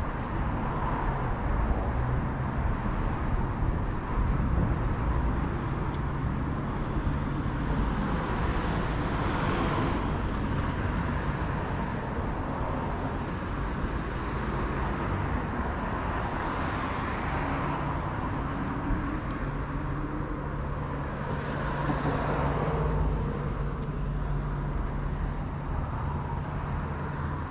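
Street traffic: cars pass one after another, each swelling and fading, over a steady low rumble of city traffic.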